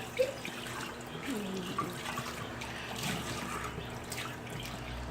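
Water from a tap running and trickling as a chicken waterer is rinsed out.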